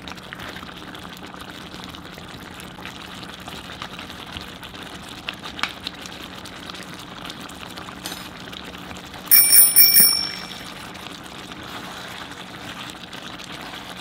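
A thick chicken braise simmering in a pan on an electric cooktop, with a few light knocks from a spatula stirring it. About nine seconds in, the cooktop gives a quick run of about four loud, high electronic beeps.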